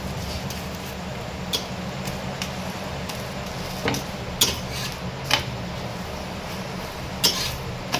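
Metal kitchen utensils clinking against cookware, about half a dozen short sharp knocks, the loudest around the middle and near the end, over a steady low hum.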